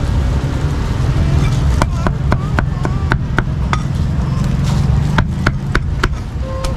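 Steel meat cleaver chopping cooked pork liver and offal on a thick wooden chopping block. Sharp chops about four a second begin about two seconds in and come in two runs with a short pause between, over a steady low rumble.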